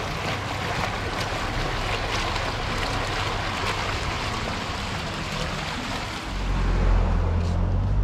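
Tiered street fountain splashing: jets of water falling into stone basins make a steady rush of water. About six seconds in, this gives way to a low rumble.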